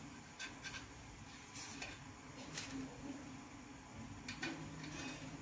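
Faint, scattered clicks and light scrapes of a knife against a steel idli mould plate as steamed idlis are prised out of its cups.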